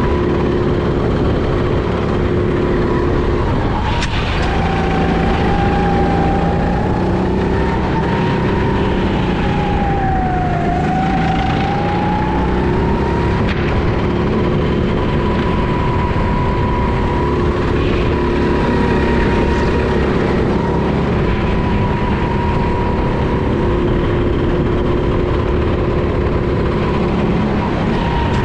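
Go-kart engine running hard at high revs while lapping, its pitch dipping around ten seconds in and climbing back up. A few short knocks cut through.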